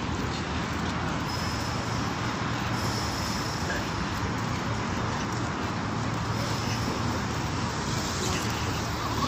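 Steady outdoor city ambience: a constant hum of road traffic with no distinct events.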